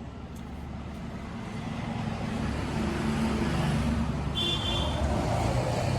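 A motor vehicle running close by, its rumble growing louder over a few seconds, with a short high tone about four and a half seconds in.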